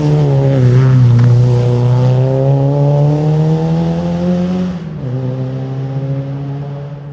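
Rally car accelerating hard out of a gravel corner: the engine note climbs steadily for about four seconds, drops sharply at an upshift near the five-second mark, then pulls on as the car moves away. A hiss of flung gravel and dirt sounds over the first part and is loudest about a second in.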